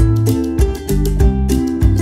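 Background music: plucked strings over a bass line, with a steady beat.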